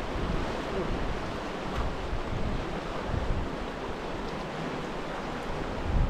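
Fast-flowing mountain river rushing over rocks close by, a steady wash of water noise, with some wind rumble on the microphone.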